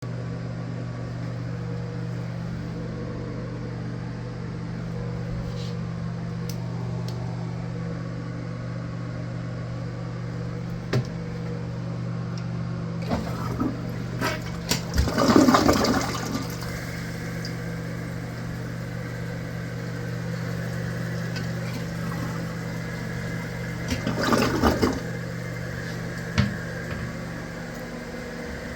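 Glacier Bay McClure dual-flush toilet flushed about halfway through: a few clicks, then a loud rush of water, followed by a steadier hiss as the tank refills and a second brief surge several seconds later, all over a steady low hum.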